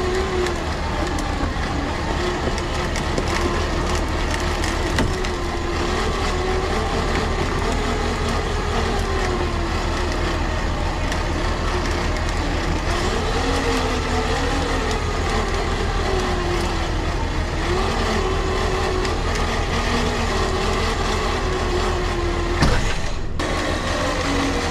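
A tow truck's engine running steadily as its winch pulls a stuck van, with the pitch wavering slowly up and down. A single sharp knock comes near the end.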